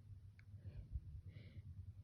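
Quiet room with a low hum: a faint click, a soft low bump, and a short, soft breath a little past halfway.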